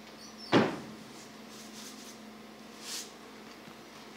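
A single sharp knock about half a second in, like something hard bumped or set down near the phone, then a brief soft hiss near three seconds, over a faint steady low hum.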